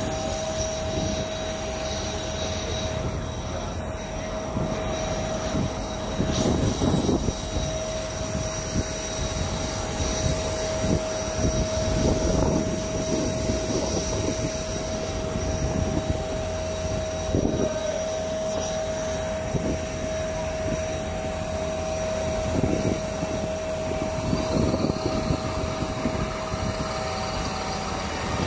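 Airport apron noise around a parked airliner: a steady high whine over a low, uneven rumble that swells every few seconds.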